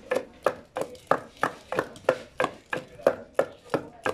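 A long wooden pestle pounding leafy greens in a carved wooden mortar: a steady rhythm of sharp knocks, about three a second.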